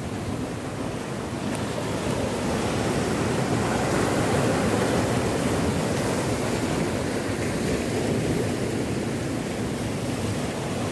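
Sea surf breaking and washing over a rocky reef shore, a steady rush of water that swells louder about two seconds in.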